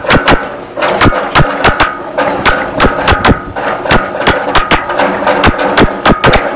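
A rapid, irregular barrage of sharp bangs, several a second, close and loud.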